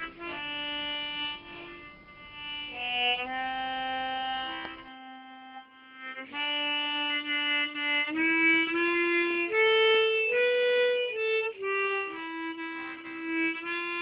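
Solo harmonica (mouth organ) improvising a slow melody of held notes. Around five seconds in the playing thins to one soft low note, then picks up again and climbs to its highest, loudest notes around ten seconds in.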